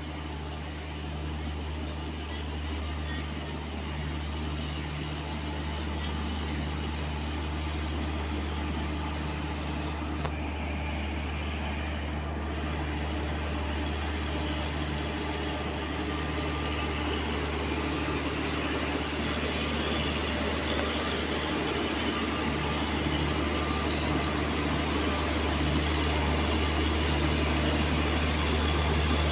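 Indian Railways WAP-4 electric locomotive rolling slowly past at close range, giving a steady low electric hum and drone with a wash of running noise. It grows gradually louder as it draws level.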